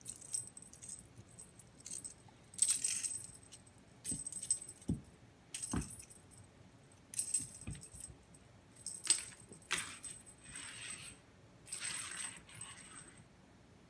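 Small bell on a feather wand cat toy jingling in about a dozen short bursts as the toy is swung and batted by a cat. A few dull thumps on the wooden floor come around the middle.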